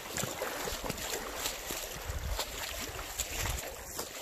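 Boots wading through a shallow stream, water splashing and sloshing with each irregular step, with some wind on the microphone.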